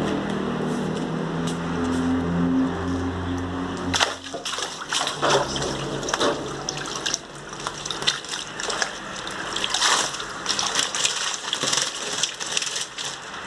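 A steady motor hum cuts off about four seconds in; then water sloshes and splashes irregularly as a wooden-framed hand net is swept through a small fish tank and lifted.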